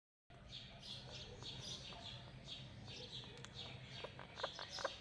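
Ringneck parakeet chirping softly, a steady run of short high chirps a few times a second, with a few soft clicks near the end.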